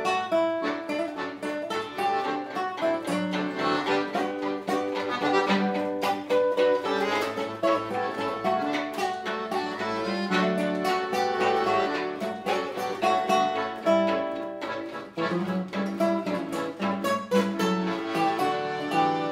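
Acoustic trio of classical guitar, accordion and violin playing an instrumental piece together, the guitar plucking a steady rhythm under sustained accordion and violin notes.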